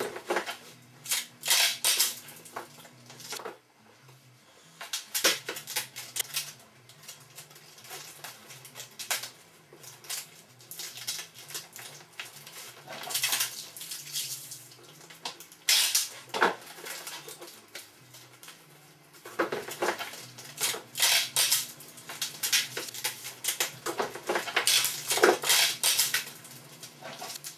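Irregular clattering and clinking of hard objects being handled, in bursts of rapid clicks and rattles, over faint low droning tones.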